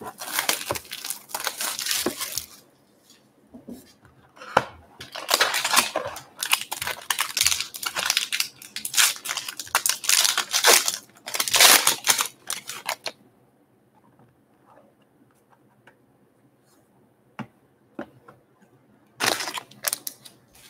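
A sealed trading-card box's wrapping and a foil card pack being torn open, crinkling and tearing in repeated bursts for about the first thirteen seconds. After that it is nearly quiet, with one more short rustle of handling near the end.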